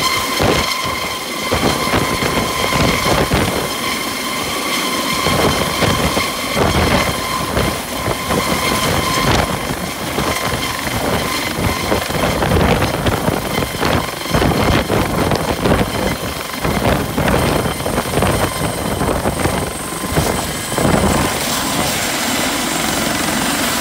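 Eurocopter Dauphin-family navy helicopter with a fenestron tail rotor hovering low and setting down, its rotor and turbines running with a steady high whine throughout. Once it is on the ground it keeps running, and a higher whine joins in past the middle.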